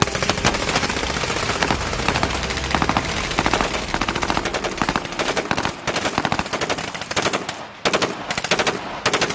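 Full-auto rifle fire on a range: rapid, overlapping bursts that pack together for the first five seconds, then thin out into shorter, separate bursts with brief pauses.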